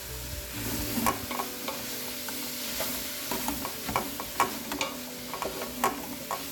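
A wooden spatula stirring sliced vegetables frying in oil in an aluminium pot: a steady sizzle with irregular scrapes and knocks of the spatula against the pot, the sharpest about four seconds in.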